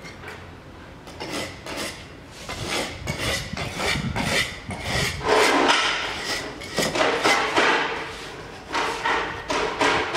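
A hand tool scraping along the joints between floor tiles, clearing them out before grouting: a run of quick, irregular scraping strokes that grow louder about two and a half seconds in.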